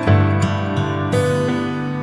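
Instrumental background music with plucked, guitar-like notes; a new chord sounds at the start and another about a second in.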